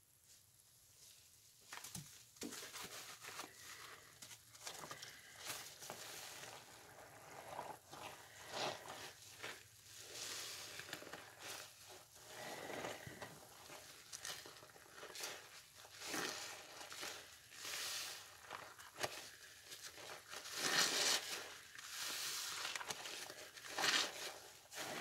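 Sponges soaked in pine cleaner suds being squeezed again and again: wet squishing with crackling foam, in irregular strokes that begin about two seconds in.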